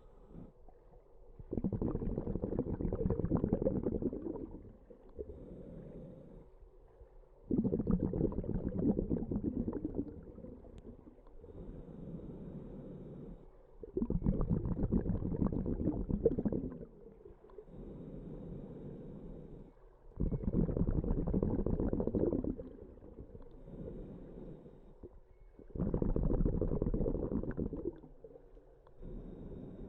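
A diver breathing underwater: five long bursts of bubbling exhalation, about every six seconds, with quieter stretches between breaths.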